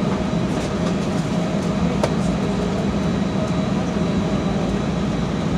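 Steady airliner cabin noise on the ground before takeoff: a low hum from the air conditioning and idling engines, with a faint high steady whine. One light click about two seconds in.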